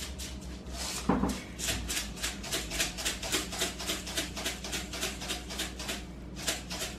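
Spice shaker of onion powder shaken over a bowl of flour: a quick, even rattle of about four or five shakes a second.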